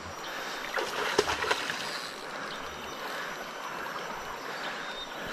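Fast-flowing muddy river rushing steadily, with a short cluster of sharp noises about a second in.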